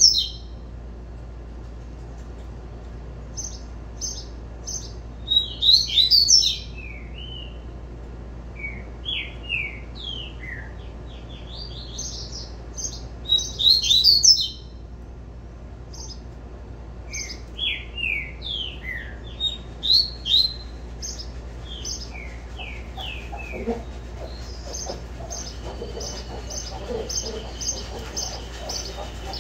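Double-collared seedeater (coleiro) singing the 'tui tui' song: bursts of quick, high, down-slurred whistled notes every several seconds, then a longer, faster run of notes near the end.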